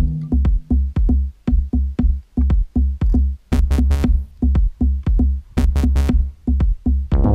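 Background electronic music with a steady drum-machine beat and deep bass hits, with a few bright splashy accents around the middle.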